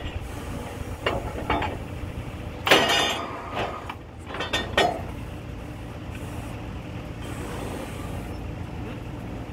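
Truck-mounted borewell drilling rig running with a steady low drone, while a series of sharp clanks and knocks sound between about one and five seconds in, the loudest about three seconds in.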